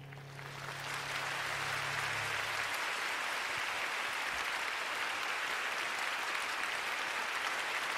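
Audience applauding, swelling up within the first second and then steady, while the last held low notes of the music fade out in the first two to three seconds.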